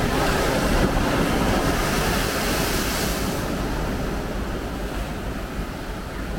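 Sea waves breaking and washing, the rush swelling about a second in and easing off after about three seconds, with wind buffeting the microphone.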